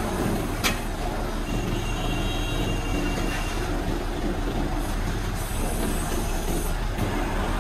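A crane truck's engine runs steadily while the truck-mounted Unic crane lifts a load, with a single sharp click about a second in.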